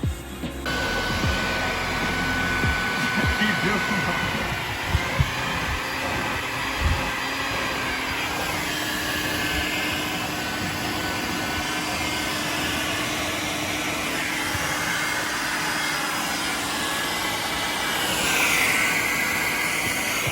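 A vacuum cleaner running steadily, its pitch shifting slowly and rising near the end, with a few knocks in the first several seconds.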